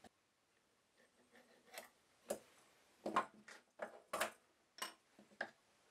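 Faint, irregular light clicks and taps as a pencil and a metal combination square are handled and set down on a wooden workbench during marking out.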